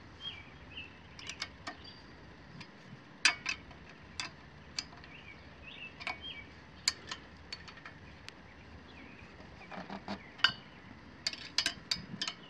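Irregular sharp metal clicks and clinks of a combination wrench on bolts being fitted to a small engine, coming more thickly near the end. Faint birds chirp in the background.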